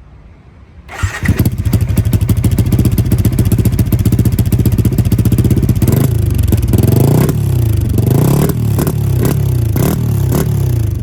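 Yamaha Y15ZR's 150 cc single-cylinder four-stroke engine starting about a second in and idling through a Cardinals 32 mm replacement exhaust with its silencer fitted, then revved in a string of quick throttle blips from about six seconds in.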